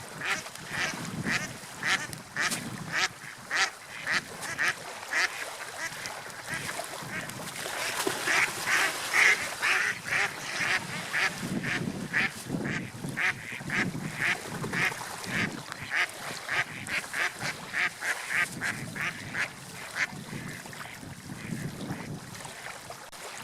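Waterfowl calling in a long run of short calls, a few each second, over a low background rumble.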